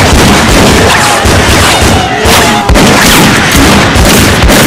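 Gunfire in a rapid, continuous barrage of shots, loud and distorted.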